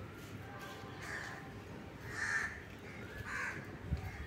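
Crows cawing: three caws roughly a second apart, over a steady low background noise.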